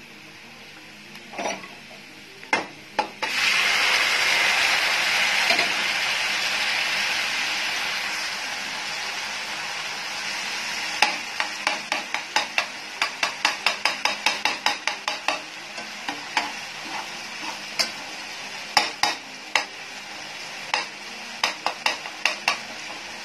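Cooked minced meat with its liquid hitting a pan of hot oil and fried onions: after a few knocks, a loud sizzle starts abruptly about three seconds in and slowly dies down. From about halfway, a slotted spatula scrapes and taps against the nonstick frying pan as the mince is stirred, a couple of strokes a second.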